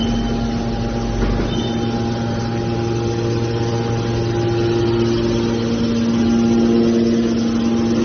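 Hydraulic scrap metal baler's power unit, an electric motor driving the hydraulic pump, running with a steady hum and whine. The whine grows stronger about three seconds in.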